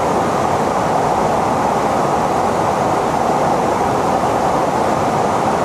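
Steady, even roar of rushing air and jet noise from aircraft in flight. It has no tones or changes.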